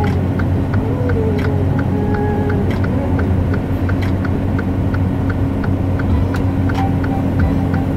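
Inside a semi-truck's cab, the diesel engine runs with a steady low drone. A light tick repeats about four times a second over it.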